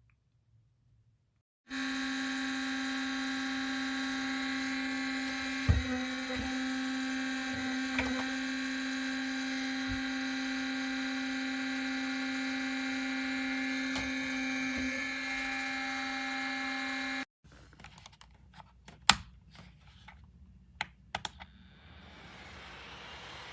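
Small electric fan motor of a plug-in wall space heater running with a steady whine, starting suddenly about two seconds in and cutting off suddenly a few seconds before the end. Then come a few sharp clicks and knocks, and a steady hiss near the end.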